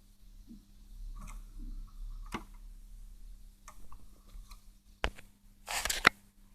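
Scattered small clicks and taps of hands working on a radio cassette recorder, with a sharp click about two seconds in, another about five seconds in, and a short, louder clatter near the end.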